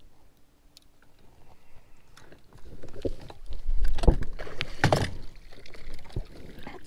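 Knocks and clunks on a fishing boat's bow, with some water splashing, as the bow trolling motor and rod are handled; the loudest knocks come about four and five seconds in after a quiet start.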